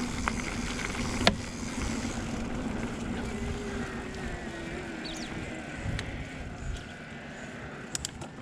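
Riding noise of a Specialized Levo Pro electric mountain bike on a dirt trail: tyres rolling over the ground with a faint steady hum from its Brose mid-drive motor under pedal assist, and no rattles. A sharp click comes about a second in and another around six seconds.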